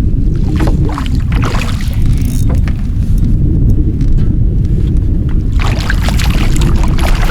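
Heavy rumble of wind buffeting the microphone on a canoe, with irregular splashing and knocks that grow busier near the end.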